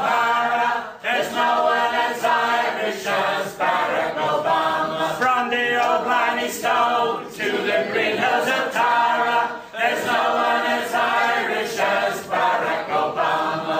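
Unaccompanied singing of a folk-song chorus, a man's voice leading with other voices joining in, no instruments.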